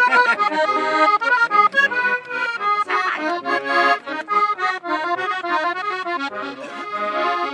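Accordion playing a lively Hutsul folk tune, an instrumental passage with quick changing notes.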